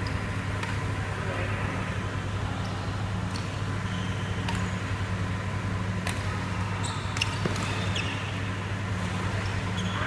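Badminton doubles rally: racket strings striking the shuttlecock in sharp clicks, irregular and roughly a second or so apart, with a few brief shoe squeaks on the court floor, over a steady low hum.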